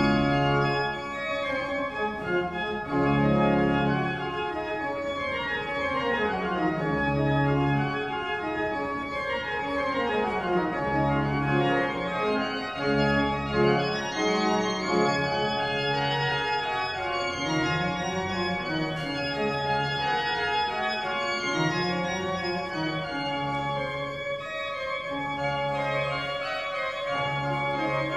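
Pipe organ being played: runs of notes climbing and falling over held bass notes.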